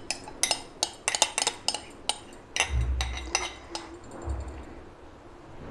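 A metal spoon clinking against a glass bowl in a quick, irregular series of sharp clinks as the last of the beaten egg is knocked out over the pan. Two dull low thumps come about three and four seconds in, and then the clinking stops.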